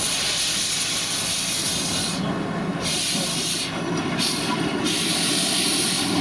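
Ruston steam navvy working: loud steam hiss that comes on suddenly, cuts out briefly about two seconds in and twice more around four seconds, over the rough rumble of the bucket pushing into loose stone.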